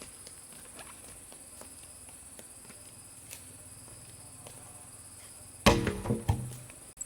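Steady high-pitched drone of insects such as crickets or cicadas, with faint scattered ticks. Near the end comes one sudden loud knock with a brief ringing decay.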